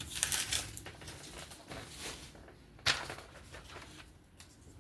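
Handling noise at a table: paper rustling, then a single sharp click about three seconds in as something hard is set down or picked up.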